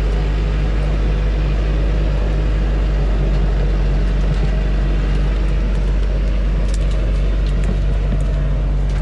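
Heavy log truck's diesel engine running hard and steady while the loaded truck is bogged down in deep mud, with a few light cracks near the end.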